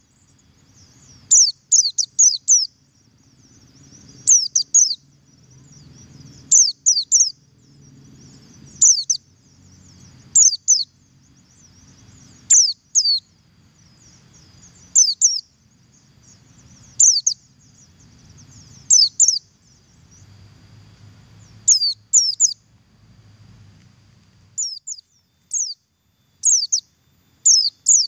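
White-eye (pleci buxtoni) giving its double call: clusters of two to four quick, high, down-slurred notes, repeated about every two seconds.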